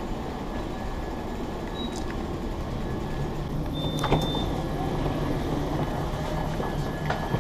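Steady low running rumble heard from inside a moving passenger vehicle, with a click and a short high beep about four seconds in and another click near the end.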